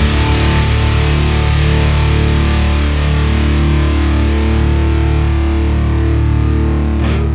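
Hard rock music with a distorted electric guitar holding a sustained chord over a steady low note, and a couple of short hits near the end.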